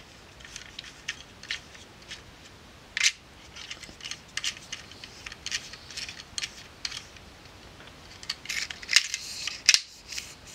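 Small, sharp clicks, ticks and scrapes of hands handling an opened Ricoh Auto Half film camera and its loaded 35 mm film. There is a louder click about three seconds in and a cluster of the loudest clicks near the end.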